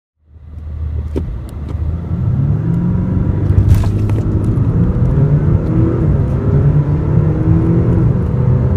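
Audi A6 3.0 TDI V6 diesel engine heard from inside the cabin during a launch-control start: it runs at raised revs, then pulls hard from standstill, its note rising in steps as it accelerates through the gears. A short sharp noise comes about four seconds in.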